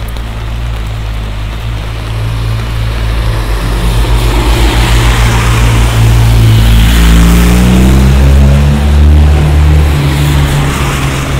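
A motorcycle comes up and passes close on the wet street, its engine getting louder with the note rising about seven seconds in, over the hiss of tyres on wet road. A car follows close behind near the end.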